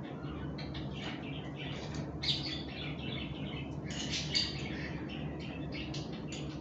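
A small bird chirping and squawking over and over in short, high calls, loudest about two seconds in and again about four seconds in, over a steady low hum.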